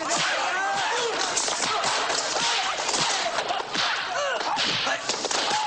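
Martial-arts film fight soundtrack: a rapid run of punch and kick impact effects and whip-like swishes, with short shrill cries.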